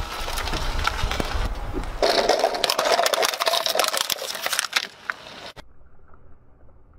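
Car tyre rolling over small plastic toys and crushing them: a run of crackling and crunching packed with sharp cracks, loudest in the middle. About five and a half seconds in it cuts off suddenly to faint, dull gritty sounds.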